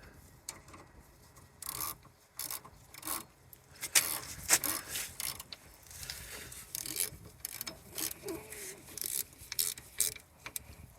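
Hand ratchet wrench tightening a brake caliper bolt: irregular runs of ratchet clicks and sharp metal clinks of the tool on the bolt.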